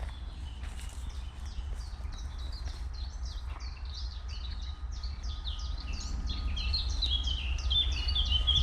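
Small songbirds chirping and singing in quick, dense runs of short notes, growing louder toward the end, over a steady low rumble.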